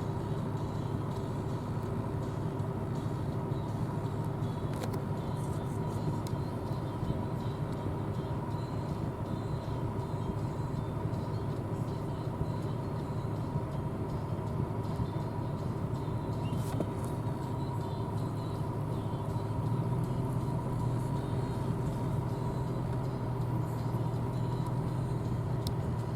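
John Deere S680 combine running steadily while harvesting corn, a constant machine drone with a steady whine over a low rumble; the rumble grows a little louder about two-thirds of the way through.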